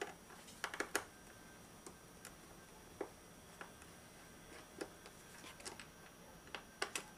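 Light, scattered clicks and taps of hands working small parts on a motorcycle airbox while the air temperature sensor is being taken off, with a quick cluster of clicks near the end.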